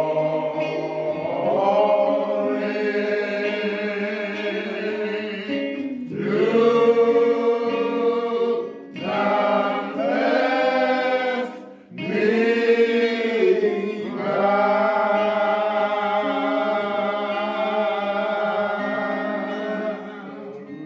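Slow, unaccompanied hymn singing in gospel style: long held notes sung in phrases with short breaks between them.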